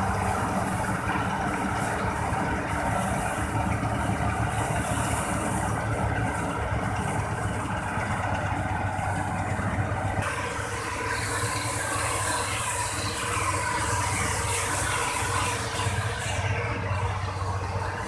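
Combine harvester running as it cuts and threshes wheat: a steady engine drone with the rush of its threshing machinery. The sound changes about ten seconds in.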